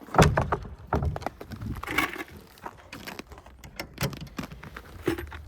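A series of irregular knocks and thumps, the loudest just after the start and another about a second in.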